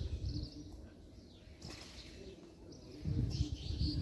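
Outdoor ambience with faint bird chirps and a low rumble that drops away after the first half-second and swells again near the end.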